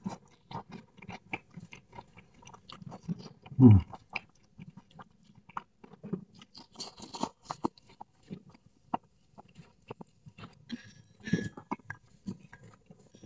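Close-up mouth sounds of chewing stir-fried snake meat, with wet smacking and small crunches from the minced snake bones. About four seconds in comes one louder, short low sound falling in pitch.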